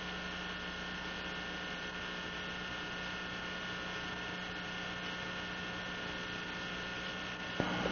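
Steady electrical hum with several fixed tones over an even hiss. A click comes near the end, and after it the hum is louder.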